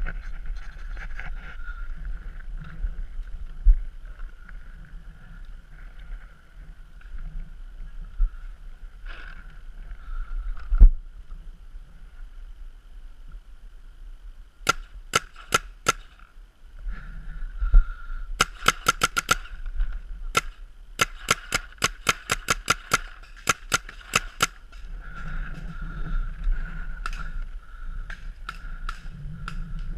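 Paintball markers firing: sharp pops in rapid strings, the fastest volleys coming between about halfway and three quarters through, with a few scattered shots near the end.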